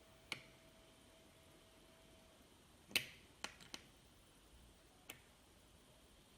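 Sharp, separate clicks of buttons being pressed on a fake bomb prop's control panel: five in all, one shortly after the start, the loudest about three seconds in with two quick ones just after it, and a last one about five seconds in.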